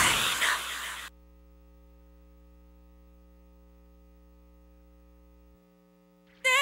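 An arena crowd cheering, fading over about a second and then cut off abruptly. A faint, steady electrical hum follows, and music starts again right at the end.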